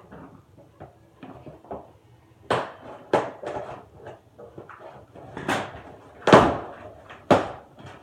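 Cardboard box and packaging being handled and pulled apart: irregular scrapes and rustles with several louder knocks and thumps, most of them in the second half.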